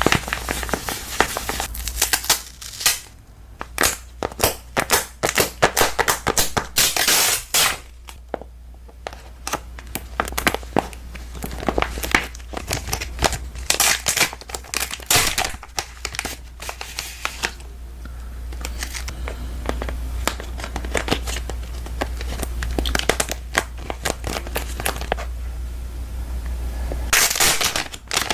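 Close-up crinkling and crackling of something handled near the microphone: dense, irregular crackles that come in several louder flurries, over a steady low hum.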